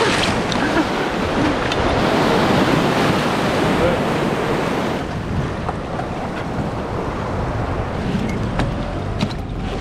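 Breaking surf and seawater splashing around a small inflatable boat in the shallows, with wind buffeting the microphone. It is loudest in the first few seconds and eases off after about halfway.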